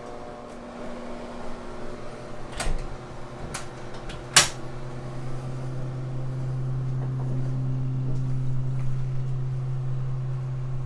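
Clicks and a sharp clack from the metal door latch of a shower trailer as the door is opened. Right after the clack a steady low hum comes in and keeps going.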